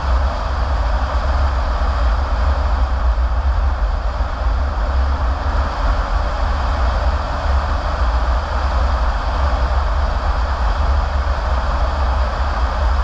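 Steady road noise of a car heard from inside as it drives on a paved road: a low rumble with an even rushing noise above it.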